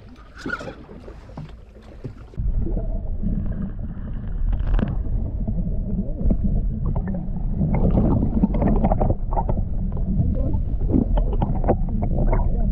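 Muffled underwater sound picked up by a submerged camera: a steady low rumble of water with scattered crackles and clicks, starting suddenly about two seconds in after a quieter stretch.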